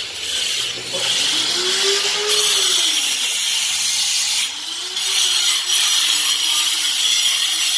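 A tool working the face of a marble statue: a steady, harsh scraping hiss with a low hum that wavers up and down in pitch. It dips briefly a little past four seconds.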